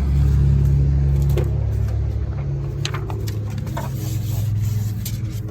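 A car's engine running with a steady low hum, with a few light clicks and rustles on top.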